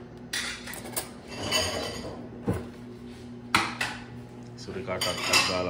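Metal cutlery and dishes being handled and put away, clinking and clattering in a series of irregular sharp knocks, over a faint steady hum.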